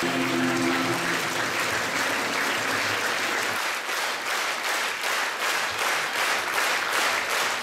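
Large audience applauding: many hands clapping, which about halfway through falls into a steady rhythm of clapping in unison.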